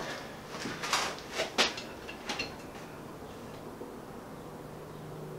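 A few short metallic clicks and knocks of a spanner working a tight bolt loose on the underside of a motorcycle engine, then a faint steady low hum.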